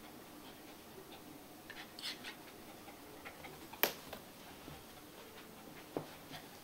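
Small dogs moving about on a hard floor, with faint scattered ticking of their claws. A sharp snap comes about four seconds in, and a softer knock at about six seconds.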